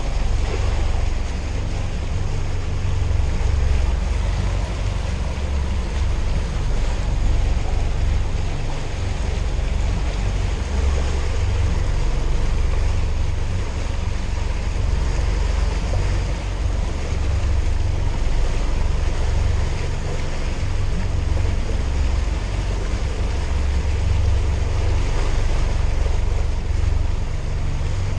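Fishing boat's engine running steadily at trolling speed, a constant low rumble, with the wake churning and wind buffeting the microphone.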